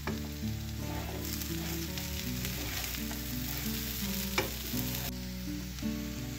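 Wooden spatula stirring diced potatoes and fried minced meat in a sizzling frying pan, scraping over the pan with a sharp knock about four seconds in.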